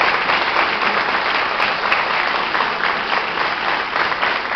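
Audience applauding, a steady dense clapping that eases slightly near the end.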